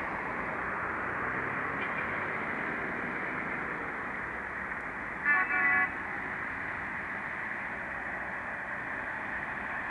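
A car horn gives two short toots about five seconds in, over a steady rushing background of road traffic.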